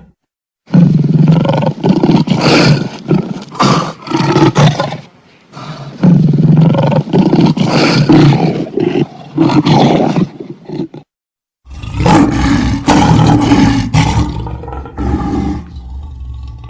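Lion roaring loudly in three bouts, each a run of surging roars. Between the bouts the sound cuts abruptly to silence.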